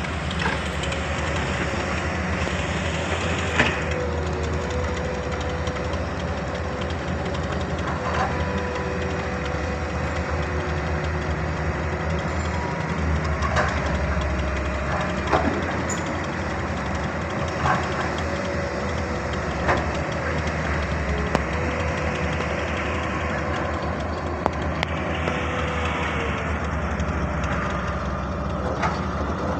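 Crawler excavators' diesel engines running steadily while digging, with a sharp clank every few seconds.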